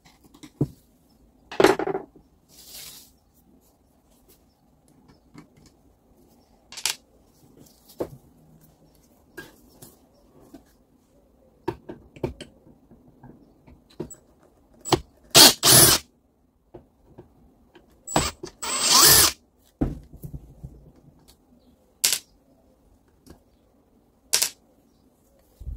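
Workbench sounds of hands-on work on an angle grinder: scattered clicks and knocks of tools and metal parts, with short loud bursts of noise about two seconds in, twice around the middle, and a longer one a little after.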